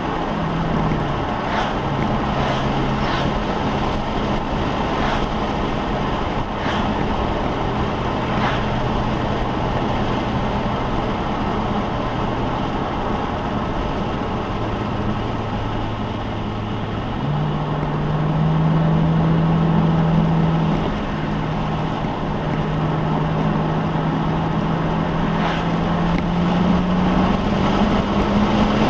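V8 car engine under way, its pitch stepping down and back up as the driver works through the gears. It gets louder, at higher revs, for a few seconds about two-thirds in, then settles and climbs steadily again near the end.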